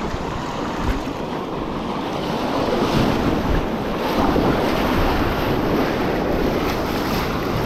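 Rushing whitewater of a small river rapid as a loaded sea kayak runs through it, with water splashing around the hull and wind buffeting the microphone.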